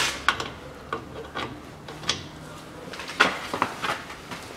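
Steel socket and long breaker bar clinking and knocking as they are fitted onto the overtightened fill plug of a rear differential: about eight sharp metal knocks and rattles, the loudest a little after three seconds in.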